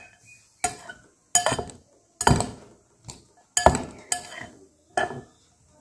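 A spoon clinking and scraping against a glass mixing bowl while grated carrot salad is stirred and tossed. There are about seven separate strokes at an uneven pace, roughly one every 0.7 seconds.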